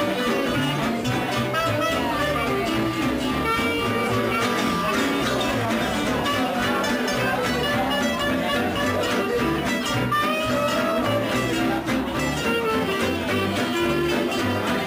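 Live swing jazz from a small band: plucked acoustic guitars keeping the rhythm, with a clarinet playing held melody notes over them.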